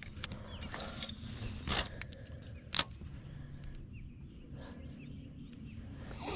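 Small handling noises in a fishing boat: two sharp clicks and a brief rustle over a low steady hum, with faint bird chirps in the background.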